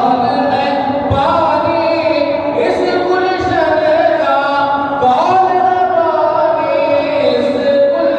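A man singing a devotional Urdu kalaam (naat/manqabat) unaccompanied into a microphone, in long held notes that slide between pitches.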